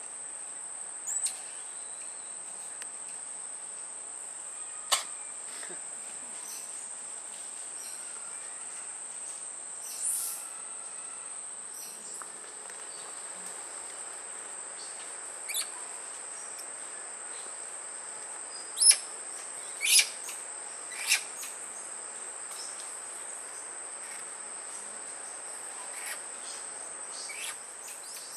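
Steady high-pitched buzz of insects, with a few short sharp sounds scattered through; the loudest three come about a second apart, some two-thirds of the way in.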